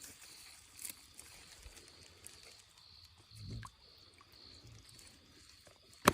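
Faint outdoor sounds: a steady high-pitched hum, a few soft clicks and a dull thud, then one sharp knock near the end, the loudest sound.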